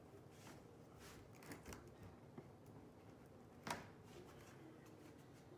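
Near silence, broken by a few faint clicks and rustles of handling, with one sharper click about two-thirds of the way through.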